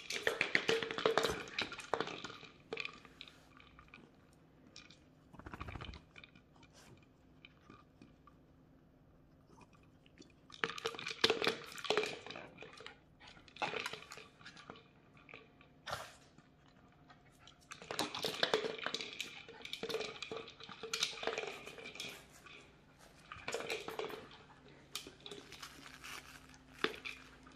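Bichon Frise puppies crunching dry dog treats, in bursts of rapid crunching a second or two long with quieter gaps between them. Mixed in is the clatter of treats inside plastic treat-dispensing toys as the dogs nose them around.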